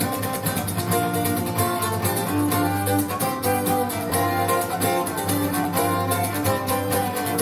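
Instrumental music with string instruments, played back over TriArt Hartley hi-fi loudspeakers in a demo room: sustained notes over a steady bass line.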